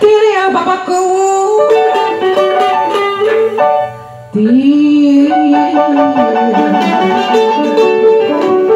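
Loud electronic keyboard-organ music with a melody over a steady accompaniment; it drops away briefly a little before the middle and comes back on a sliding held note.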